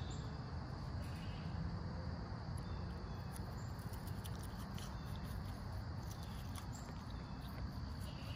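A goat cropping grass in soft, irregular crisp ticks, over a steady insect chorus and a low rumble.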